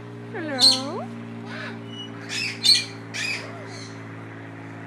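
A bird squawking: one call that dips and then rises in pitch about half a second in, followed by three short, harsh squawks in quick succession near the middle.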